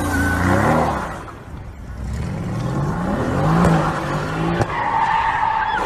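Sports car engine revving up and down as it drifts in circles, rear tyres spinning and squealing in their own smoke. The engine eases off briefly about a second and a half in, then climbs again, and a steady tyre squeal sounds near the end.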